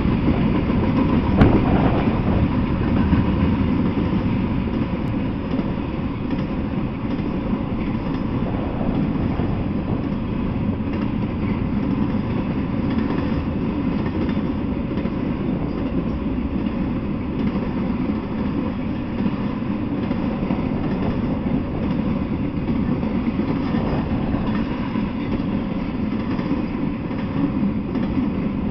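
Intermodal freight train's container well cars rolling past, a steady rumble of wheels on rails, with one sharp knock about a second and a half in.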